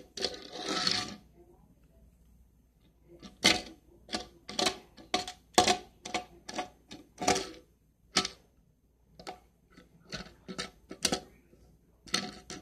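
A short rustle of handling, then an irregular run of sharp taps or clicks of hard objects, roughly two to three a second with a brief pause about two-thirds of the way through.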